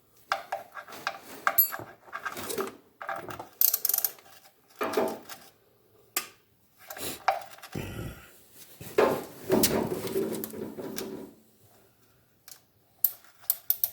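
Irregular clinks, knocks and scraping of hand tools and metal being handled, in short spells with brief pauses, as work starts on draining an engine's oil.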